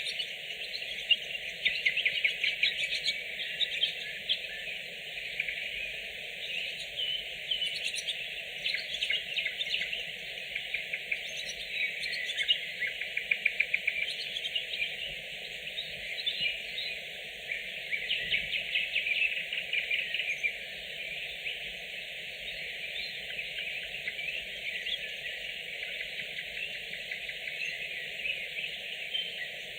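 Nightingales singing: fast phrases of clicks, whistles and quickly repeated notes, some in rapid rattling runs, over a steady lower background noise.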